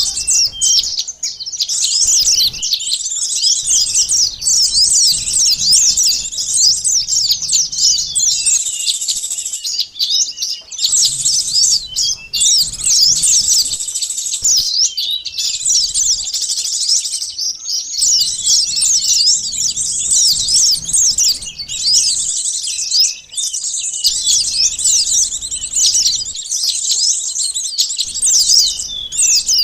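Bird-lure recording of sunbirds and other small songbirds: a dense, noisy chorus of rapid, high-pitched chirps and twitters, with short breaks every few seconds.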